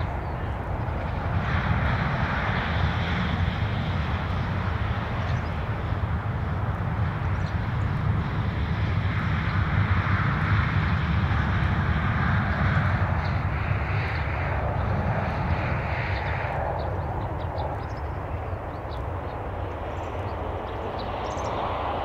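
Distant aircraft engine noise: a steady low rumble with a rushing noise on top that slowly swells and fades.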